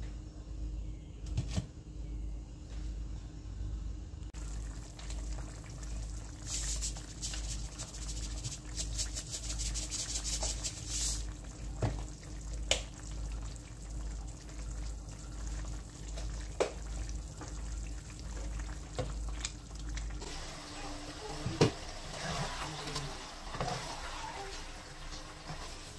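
Beef and soy sauce simmering in a nonstick sauté pan, bubbling with scattered ticks and a run of rapid popping a few seconds in. About twenty seconds in the sound changes to a spatula stirring the thickened beef, scraping with a sharp knock against the pan.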